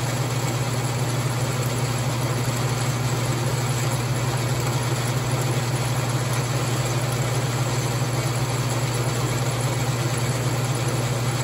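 Logan lathe running steadily under a milling cut, its spindle-driven cutter taking a flat off a workpiece in the milling attachment as the cross feed is cranked by hand. A steady low hum with an even cutting hiss over it; the cut sets up some vibration.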